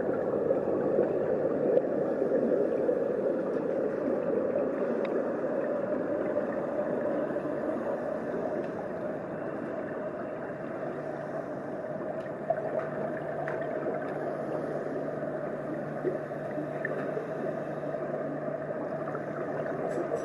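Steady muffled underwater rumble and hiss picked up by a camera held under water in a pool, with a low steady hum coming in about halfway through.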